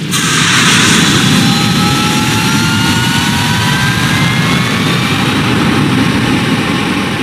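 Jet engine running loud, a heavy rush with a high whine that rises slowly in pitch; it starts abruptly.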